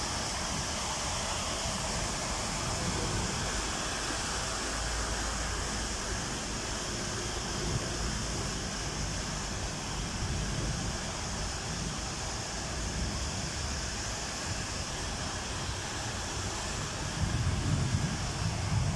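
Steady rush of floodwater running down a flooded street. A vehicle's low rumble rises near the end as a car drives through the water.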